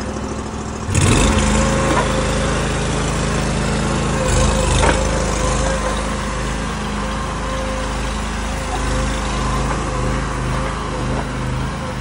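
A mini skid steer's 23 hp Briggs & Stratton V-twin engine running just after start-up. Its revs step up about a second in and then hold steady while the tracked machine drives off.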